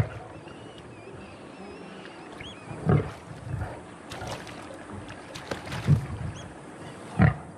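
A young male lion snarling and growling in about four short, loud outbursts, one near the start, one about three seconds in, one about six seconds in and one near the end, with lower growls between. He is warning off small Nile crocodiles closing in on his carcass.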